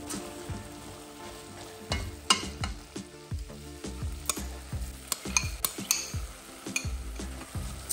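Wooden spoon stirring diced potatoes and vegetables as they fry in a stainless steel pot, with a light sizzle and scattered knocks and scrapes of the spoon against the pot.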